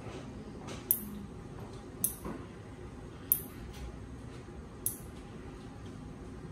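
Nail clipper snipping toenails: four sharp clicks, a little over a second apart.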